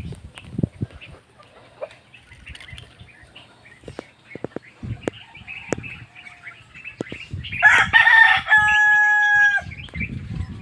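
A rooster crows once, about seven and a half seconds in, ending in a long held note. Around it there are scattered faint clicks and bird chirps.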